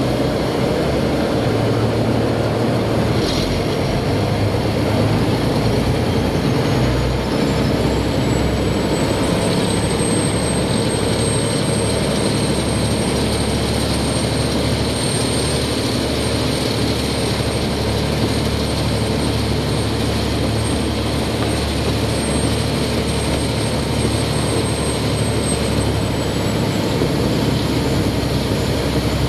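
Khlong Saen Saep express boat under way: its diesel engine runs steadily under the rush of water spraying past the hull. A thin high whine rises about seven seconds in, holds, and dies away near the end.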